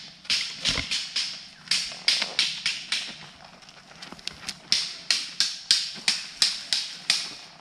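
Footsteps crunching on a dry path at a brisk walk, about two to three steps a second, with a short pause partway through.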